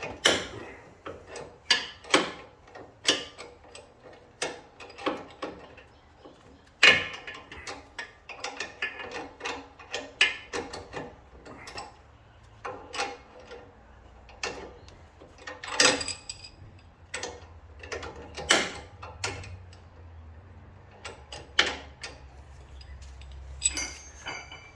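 Hand tools working on a car's suspension to undo the stabilizer link nut: irregular sharp metal clicks and clanks, a few louder knocks among them.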